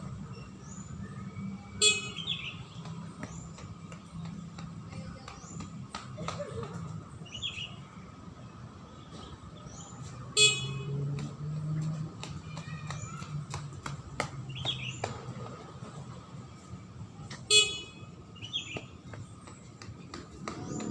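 Beep test recording's timing beeps sounding three times, seven to nine seconds apart, each a short high-pitched tone, over a steady low hum.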